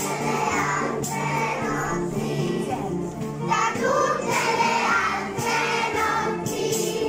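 Children's choir singing a song together, with instrumental accompaniment that includes guitar.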